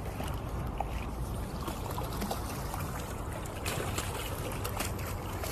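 Water trickling steadily, with a few light clicks.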